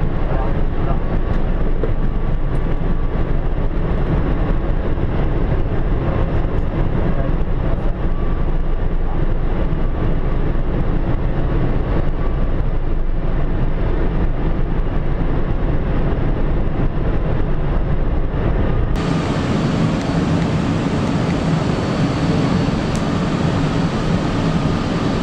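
Steady rushing and rumbling cockpit noise of an Airbus A380 on final approach: airflow past the flight deck and engine noise. About three quarters of the way through it turns brighter and hissier, with less deep rumble.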